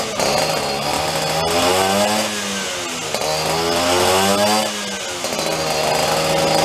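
Vespa scooter engine running on a dynamometer, revved up and back down twice, then held at a steadier speed near the end.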